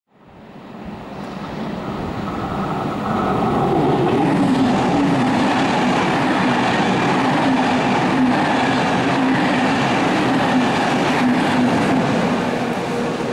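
SNCF passenger train of coaches running past close by: a steady rumble of wheels on rail with a humming tone over it. The sound swells over the first few seconds, then holds steady, with the hum dropping slightly in pitch about three to four seconds in.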